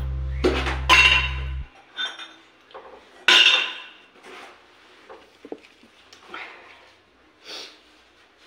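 Hard objects knocking and clinking as they are handled, with the loudest clatter about three seconds in. A low steady hum cuts off abruptly about a second and a half in.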